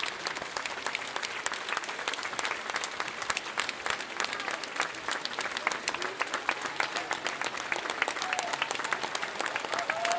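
Large crowd applauding, a dense, steady patter of many hands clapping.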